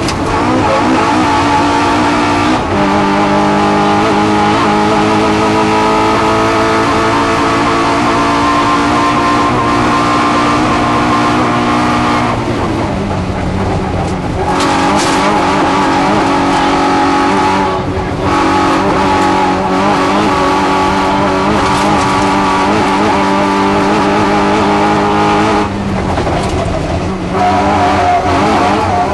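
Race car engine heard from inside the cockpit, held at high revs for long stretches. The revs fall off sharply and climb again a few times: briefly near the start, for a longer spell around halfway, briefly again, and once more near the end, as the driver lifts, brakes and changes gear.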